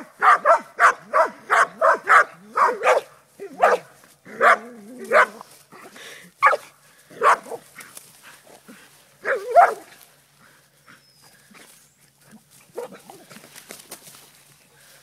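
Dog barking at a snake it is attacking: a fast run of sharp barks, about three a second, then slower, spaced barks that die away about ten seconds in.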